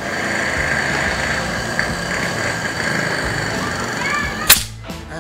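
A single shot from a Phoenix Monster double-tank PCP air rifle about four and a half seconds in: one sharp crack over a steady background hiss.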